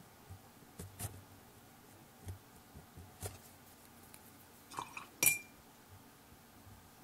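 Paintbrushes being put down and picked up during a brush change: a few light clicks and taps, then a quick cluster of clinks about five seconds in, the loudest ringing briefly.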